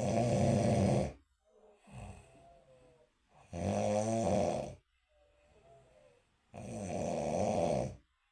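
A person snoring in a slow, regular rhythm: three loud snores about three seconds apart, each lasting over a second. Between them come softer breaths that carry a faint wavering whistle.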